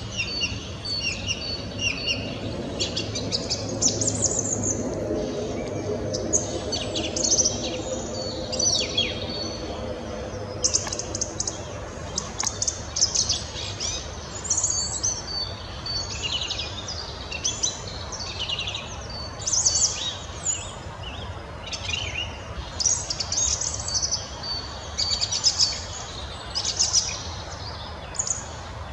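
Song thrush singing: a continuous run of short, varied phrases, one after another with brief gaps. A faint low drone sits underneath for roughly the first ten seconds.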